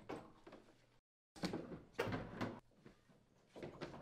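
Heat pump unit's metal chassis being slid and bumped into its wall sleeve: a run of clunks and scraping knocks, broken by a brief dead-silent cut about a second in.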